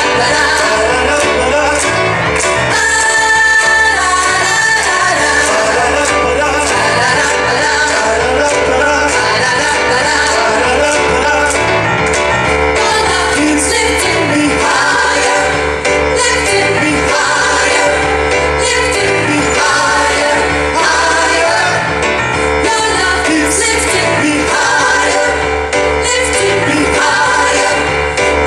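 Gospel choir of women's and men's voices singing an upbeat song over instrumental backing with a steady beat.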